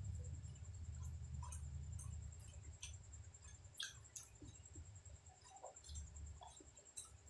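Faint close-up chewing and eating sounds: scattered small wet clicks and squishes of food in the mouth, over a low rumble that fades after the first few seconds.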